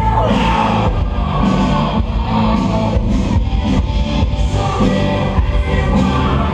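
A live rock band playing loud, distorted electric guitars over bass and drums, with no vocals.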